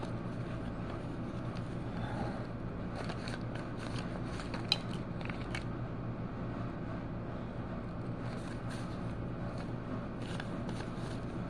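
Steady low hum with scattered light scratches and clicks of coloring on a paper page, and one sharper click about five seconds in.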